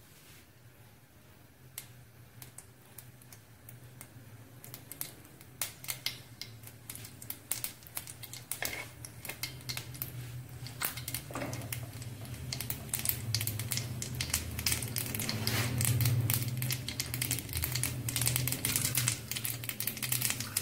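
Black mustard seeds popping and crackling in hot oil in a kadai: scattered pops at first that build to a rapid crackle, the sign that the oil is hot enough and the tempering seeds are done.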